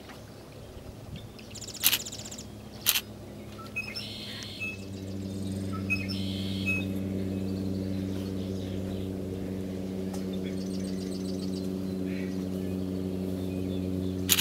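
Two sharp camera shutter clicks a second apart near the start, from a photographer shooting alongside. Small birds chirp now and then, and about five seconds in a steady low engine-like hum comes in and runs on.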